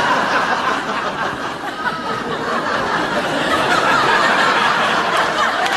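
Studio audience laughing, a dense, steady mass of many voices that eases slightly about two seconds in and then swells again.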